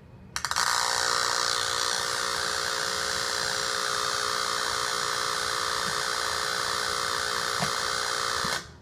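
Power-line noise sniffer's speaker, turned up to high sensitivity, playing the electrical noise on the mains line as a loud, harsh hiss over a buzzing hum. It cuts off suddenly near the end as the MIT Predator 6 noise trap is plugged in and filters the noise from the line.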